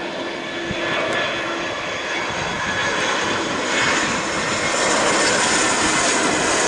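Airbus A320 airliner on final approach to land, its twin jet engines giving a steady rushing noise with a thin high whine, growing louder as the plane draws near.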